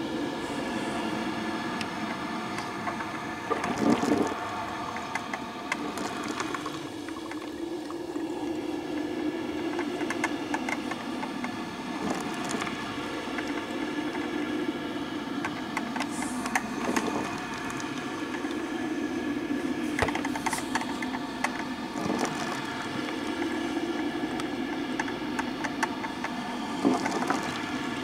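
Black & Decker drip coffee maker running a cleaning brew of white vinegar: steady gurgling and bubbling as the heater pushes the liquid up through the machine, with a few louder spurts now and then.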